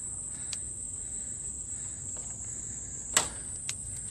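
Insects droning steadily at a high pitch, with low rushing noise beneath and a few sharp clicks, the loudest about three seconds in.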